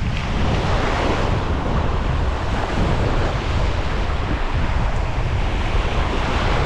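Sea waves washing onto the beach, with wind buffeting the microphone in a steady low rumble.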